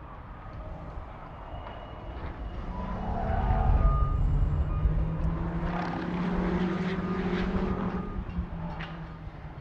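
BMW X6 M twin-turbo V8 engines running hard on track as the cars pass, growing louder to a peak about four seconds in, holding, then easing off near the end.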